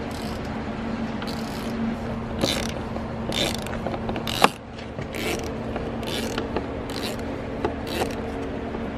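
Socket ratchet wrench clicking in repeated strokes, about one a second, undoing a bolt in the car's rear floor. There is one sharp metallic click about four and a half seconds in, and a steady low hum underneath.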